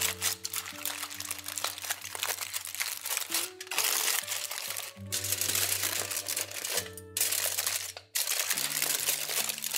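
Aluminium foil crinkling and rustling as it is crumpled and folded by hand, with a few short pauses, over background music.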